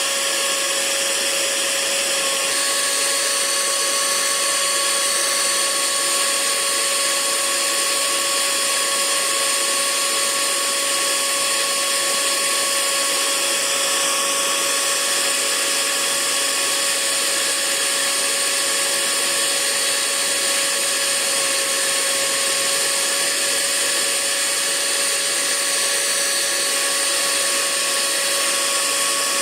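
Hair dryer running steadily: an even rush of blown air with a constant motor whine on top.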